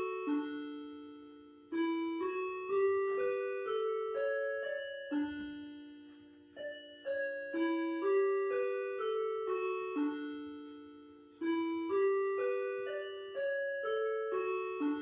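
Factory chime playing an electronic bell-like melody: groups of several struck notes, each note ringing and slowly fading before the next group begins.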